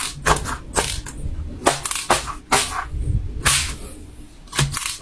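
Fidget toys being handled: sharp, irregular clicks and pops, about seven in five seconds.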